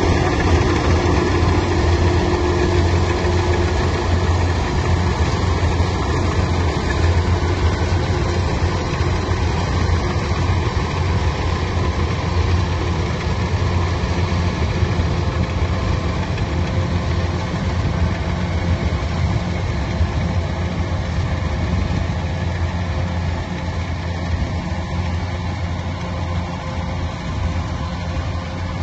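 A machine's engine running steadily with a low hum, easing off slightly near the end.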